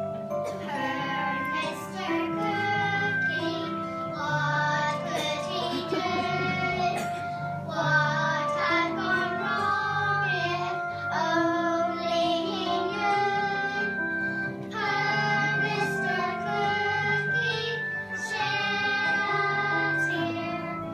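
Children singing a song together with instrumental accompaniment.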